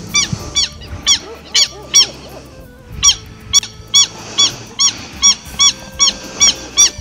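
Southern lapwing (alcaraván) calling: a series of loud, harsh repeated calls, about two to three a second, with a pause of about a second near the middle.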